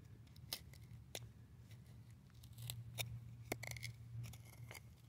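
Faint clicks and scrapes of a metal hand tool picking at wet clay around a buried corundum crystal, about half a dozen sharp ticks spread unevenly, over a low steady hum.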